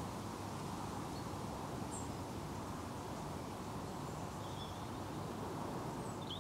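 Steady outdoor rural ambience: an even rushing background noise, with a few faint, short high chirps from birds about two seconds in and again near the end.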